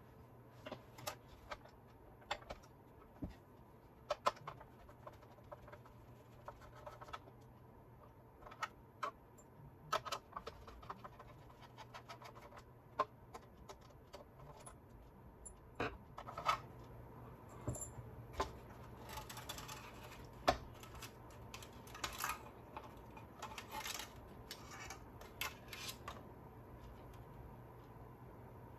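Irregular small clicks, taps and scrapes of small parts and hand tools being handled while taking apart a gyro stage mechanism, with a busier stretch of rattling and scraping past the middle.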